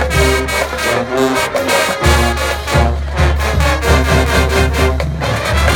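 Full marching band playing: brass with deep low brass and drum hits on the beat.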